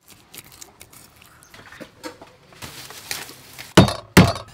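Food being prepared on a wooden chopping board: light scraping and clicking as a fish is handled and scaled, then two heavy thuds close together near the end.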